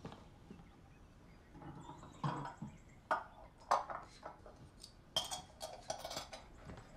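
Crockery and cutlery being handled on a table: a string of light, irregular clinks and knocks starting about two seconds in, one of them ringing briefly.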